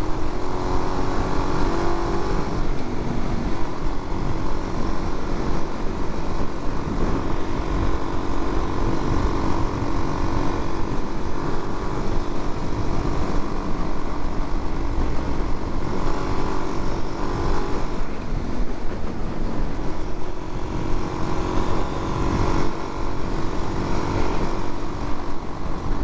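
Suzuki DR-Z400's 398 cc single-cylinder four-stroke engine running at cruising speed, its pitch rising and falling slightly as the throttle changes, over a heavy rush of wind on the microphone.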